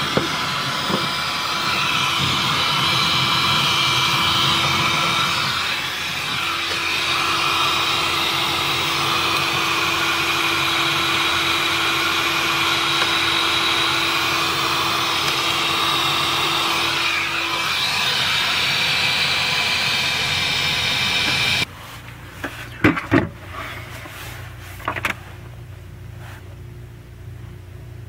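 Handheld electric heat gun blowing steadily while it melts frost off a freezer's iced-up evaporator coil. It switches off suddenly about three-quarters of the way through, followed by a few light knocks.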